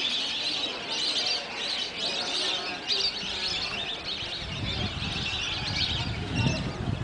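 Many small birds chirping and calling at once, a dense overlapping chorus of high chirps. A low rumble joins about halfway through.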